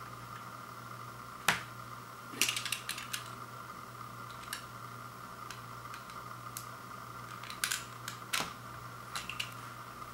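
Fingers picking at the plastic shrink wrap on a sealed vinyl LP jacket, giving scattered sharp clicks and crinkles in short clusters, the loudest a single click about a second and a half in.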